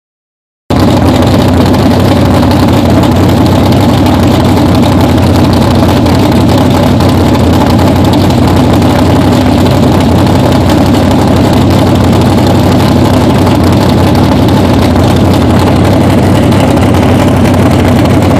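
The 1969 COPO Camaro drag car's big-block V8 idling steadily and loudly, cutting in suddenly about a second in.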